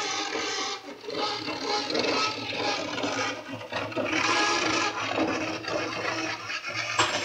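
Background music with a dense hissing wash, and a sharp click near the end.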